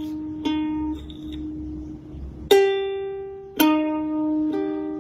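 Background music: single plucked notes, each starting sharply and ringing out, about one a second.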